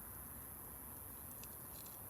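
Wood campfire crackling faintly, with a few small pops close together in the second half over a steady low hiss.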